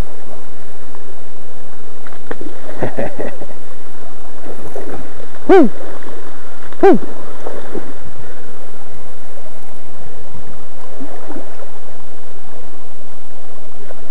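Steady rush of flowing river water, loud and close to the microphone. About halfway through come two short pitched sounds, each dropping in pitch.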